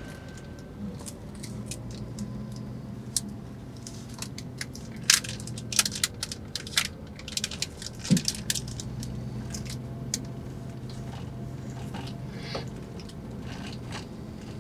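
Steady low drone of a double-decker highway bus's engine heard from inside the cabin as the bus moves off. A burst of sharp crackling clicks, loudest from about five to eight seconds in, sits on top of it.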